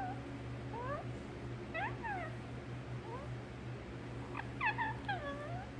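Pet parrot making a series of short, soft whistled calls that slide up and down in pitch, with a few spaced ones and then a quick cluster near the end, over a steady low hum.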